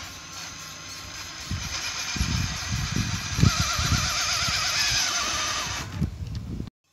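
RC rock crawler's electric motor and drivetrain whining as it crawls up wooden pallet boards. The tyres and chassis knock on the planks again and again from about a second and a half in, and the sound cuts off abruptly near the end.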